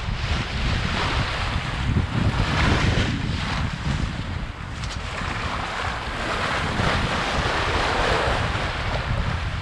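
Bow wave of a Contessa 26 sailboat rushing and splashing along the hull at sea, swelling twice, with wind buffeting the microphone as a steady low rumble.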